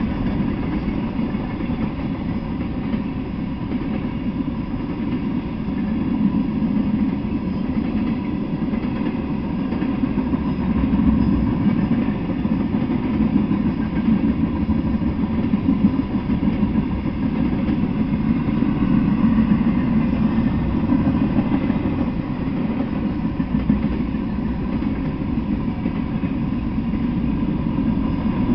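Freight train cars rolling past at steady speed: a continuous deep rumble of steel wheels on the rails, with a faint steady high tone above it.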